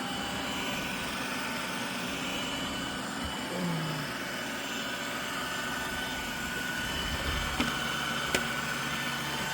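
Roomba robot vacuum running in sweep mode: a steady motor and brush whir.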